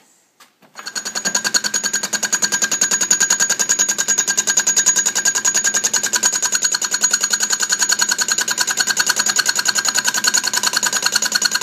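Atlas lathe starting about a second in and running with an unsharpened fly cutter in the chuck, taking a light interrupted cut on quarter-inch strap iron: a rapid, even ticking on each turn of the spindle over a steady whine.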